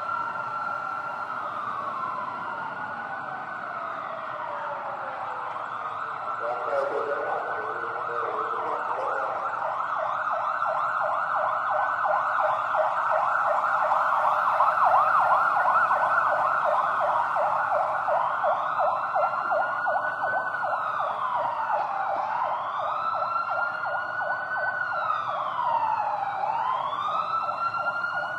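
Emergency vehicle siren wailing in slow rising and falling sweeps, switching to a rapid yelp for several seconds in the middle, then back to the slow wail.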